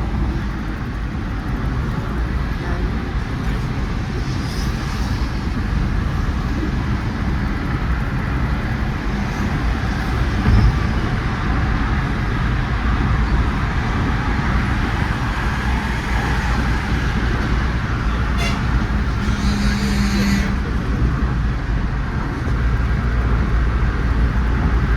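Steady road and traffic noise from travelling in traffic: a continuous engine-and-road rumble with wind-like hiss. There is a single knock about ten seconds in, and a brief low steady tone, like a vehicle horn, around twenty seconds in.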